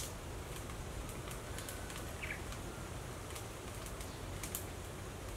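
Rural outdoor ambience: a steady low hiss with scattered small clicks and a brief bird chirp about two seconds in.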